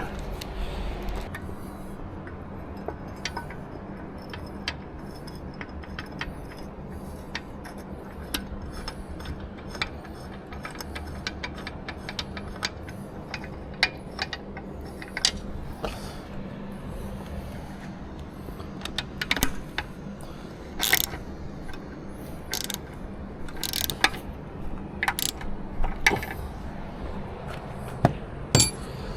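Hand tools on metal: scattered sharp clicks and clinks of wrenches and bolts being worked into an outboard's lower unit, coming in quicker clusters in the second half, over a steady low hum.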